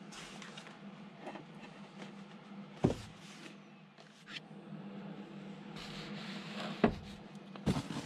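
Handling noise from covered balsa wing panels being moved about in a foam-lined cardboard box: rustling and sliding, a sharp knock about three seconds in and another near seven seconds, with a few quicker knocks and paper rustle near the end, over a steady low hum.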